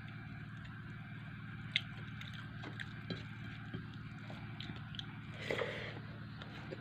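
Eating by hand from a metal plate: fingers mixing and scooping rice, and chewing, heard as scattered soft clicks and smacks. One sharper click comes about two seconds in and a brief louder rustle about five and a half seconds in, over a steady low hum.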